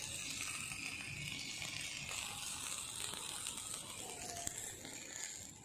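Marinated chicken pieces sizzling on a charcoal grill grate: a steady faint hiss with scattered small crackles.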